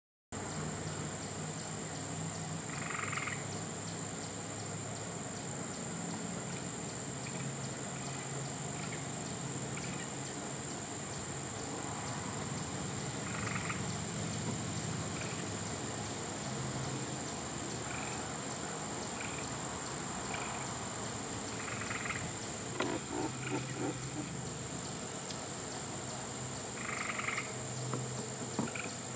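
Frogs and insects calling together: a steady high-pitched insect trill throughout over a low continuous drone, with short croaking calls every several seconds and a brief run of rapid clicks about two-thirds of the way through.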